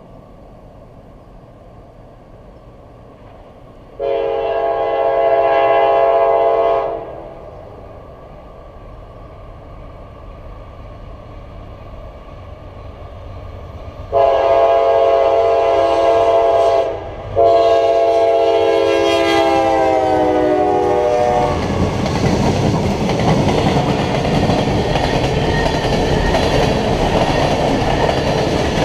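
Freight locomotive's multi-tone horn sounding for a grade crossing: one long blast about four seconds in, then a second long blast about ten seconds later, broken briefly and falling in pitch as the lead locomotive passes. The long freight train's cars then rumble and clatter steadily past.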